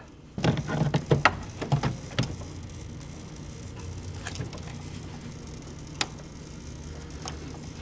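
Arcing at a double-pole breaker with a burned, loosely connected wire, carrying about 18.5 amps to a water heater: a steady low electrical buzz with scattered sharp crackling ticks, denser in the first two seconds. The sign of a failing connection, arcing inside the breaker or at its terminal.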